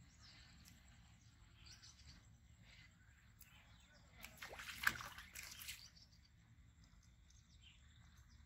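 A short splash and slosh of water about halfway through as a fishing rod is jerked up and the line pulled out of the pond. Otherwise faint outdoor quiet.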